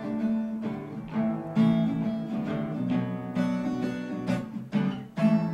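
Acoustic guitar strumming chords in a steady rhythm, playing a song's introduction before the vocals come in.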